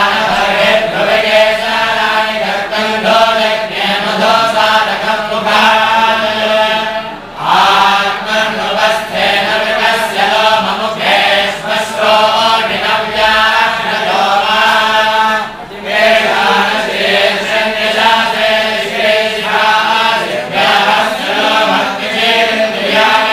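A large group of men chanting scripture together in unison, a continuous rhythmic recitation that pauses briefly twice for breath.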